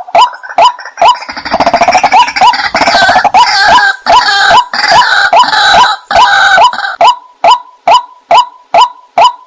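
White-breasted waterhen calling, a recorded lure call: short single notes repeated evenly about twice a second, breaking from about a second in into a denser run of overlapping, rougher croaking calls that lasts about six seconds before the even notes return.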